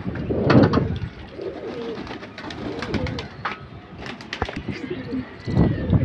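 Domestic pigeons cooing, with scattered clicks and two louder bursts of noise, about half a second in and near the end.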